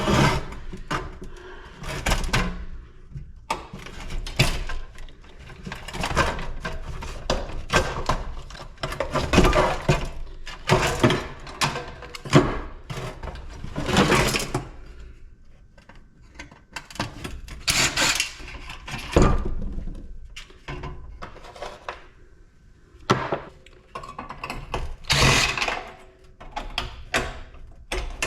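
Irregular clanks, knocks and rattles of metal parts and tools being handled while a PTAC air-conditioner is taken apart for scrap.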